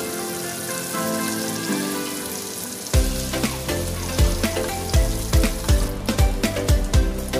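Butter sizzling and foaming as it melts in a frying pan: the bubbling stage just before flour goes in for a roux. Background music plays over it, and a steady beat comes in about three seconds in.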